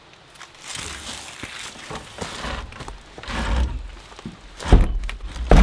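Footsteps and shuffling through a doorway, then an old wooden panel door being pulled shut, with two heavy thuds near the end as it bangs against its frame.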